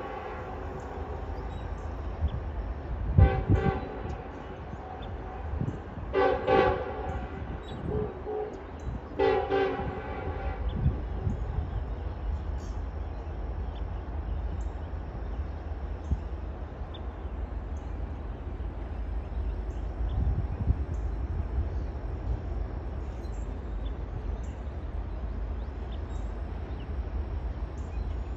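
Distant diesel locomotive horn on an approaching double-stack freight train: three short blasts about three seconds apart, then a steady low rumble from the train.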